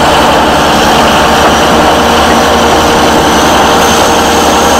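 Komatsu D375A crawler bulldozer's six-cylinder diesel engine running steadily under load as the blade pushes soil.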